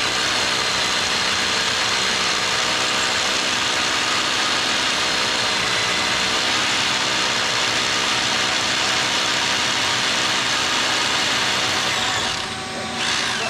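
Rotary hammer drill boring an anchor-bolt hole into a concrete floor, running steadily at full speed and stopping near the end.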